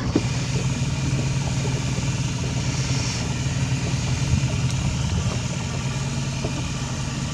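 Minn Kota bow-mount trolling motor's electric deploy mechanism running steadily as it lowers the motor into the water.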